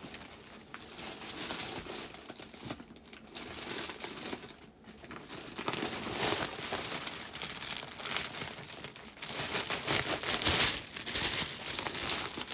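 Plastic packaging crinkling and rustling as it is handled, in irregular bursts, quieter at first and louder from about halfway through.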